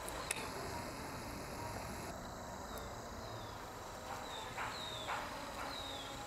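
Quiet outdoor ambience with faint, short high chirps that fall in pitch, repeating every second or so from about three seconds in, and a few brief soft rustles about two-thirds of the way through.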